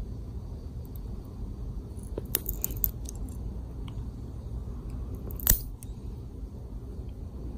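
Small stainless steel fingernail clipper cutting a cat's claw: a few light clicks a couple of seconds in, then one sharp snip about five and a half seconds in as the claw is cut through.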